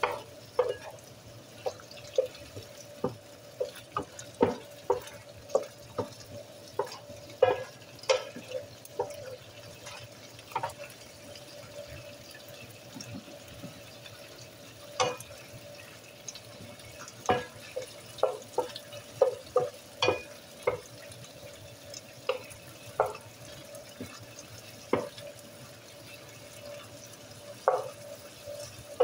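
Wooden spoon stirring and scraping diced chicken in a nonstick electric skillet, knocking against the pan in irregular taps with a couple of short pauses, over the quiet bubbling of the chicken cooking in its liquid. A faint steady hum runs underneath.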